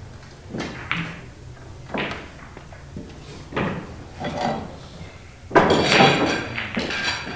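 Pool balls clacking on a pool table: a series of sharp single knocks of cue and ball, then a louder clatter lasting about a second, starting about five and a half seconds in.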